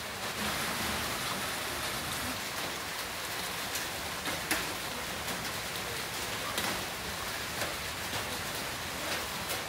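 Heavy rain falling steadily, a dense hiss of rain with scattered sharper drops and splashes.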